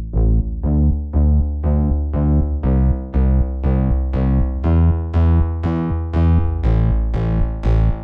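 Background music: a steady run of pitched notes, about three a second, over a deep bass.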